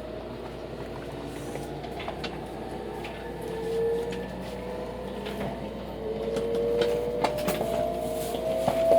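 683-series electric limited express train running, heard from inside the passenger car. It has a whine that climbs slowly in pitch as the train gathers speed, and a few sharp clicks, growing louder near the end.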